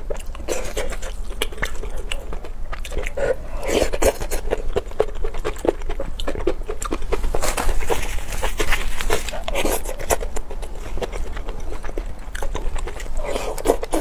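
A person chewing a mouthful of spicy noodles and rice close to the microphone, a dense run of small mouth clicks and smacks.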